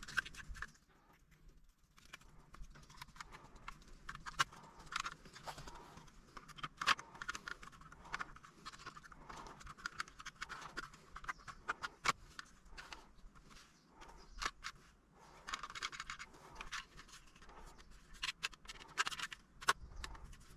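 Plastic trim parts of a center console and a carbon shift frame being handled and pressed together: scattered clicks, taps and short scrapes as buttons are fitted and the halves' clips engage.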